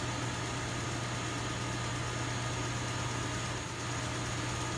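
Vacuum pump of a neon processing plant running with a steady hum, pumping a neon flush back out of a freshly processed glass tube.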